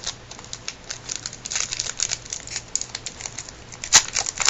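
Plastic trading-card pack wrapper crinkling as it is handled and opened, with a run of irregular crackles and one sharper, louder crackle about four seconds in.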